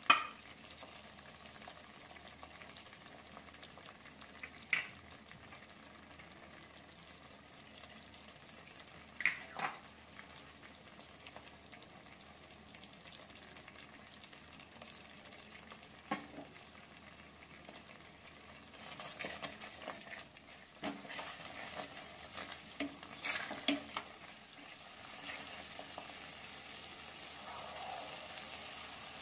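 Thick masala gravy sizzling softly in a nonstick kadai, with a few single sharp taps as spices go in. About two-thirds of the way in, a spoon clatters and scrapes as paneer cubes are stirred through the gravy, and the sizzle then carries on a little louder and steadier.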